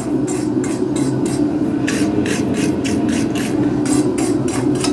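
Steel wire brush scrubbing back and forth over a hot, freshly twisted steel bar, rasping off the forge scale at about three strokes a second, over a steady low hum.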